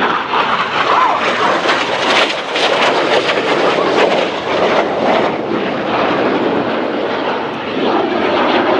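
Two BAE Hawk jet trainers flying low overhead, their engines giving loud, steady jet noise with a crackling edge that is strongest in the first half.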